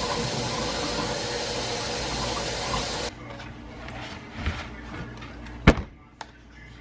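Kitchen tap running water over a cauliflower head in a stainless-steel sink, a steady hiss that cuts off abruptly about three seconds in. Then quieter rustling of a paper towel drying the cauliflower, with one sharp knock near the end.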